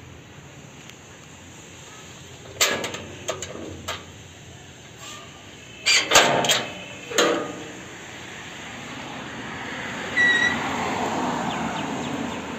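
Metal knocks and clanks from a steel and wrought-iron house gate being handled: a few single knocks, then a quicker cluster. Toward the end a short high beep and a swelling hiss of street traffic.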